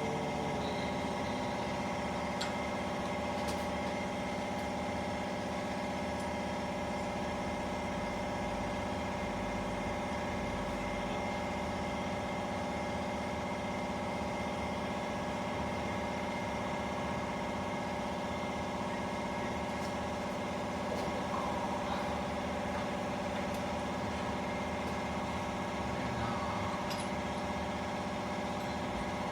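Steady mechanical hum made of several constant tones, with a few faint clicks.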